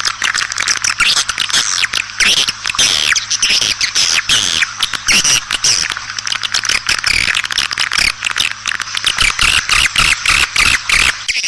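Recorded swiftlet calls: a dense, continuous twittering of short, high chirps and clicks, the 'outside' lure sound played from swiftlet houses to attract edible-nest swiftlets. A faint steady hum runs under it and cuts off near the end.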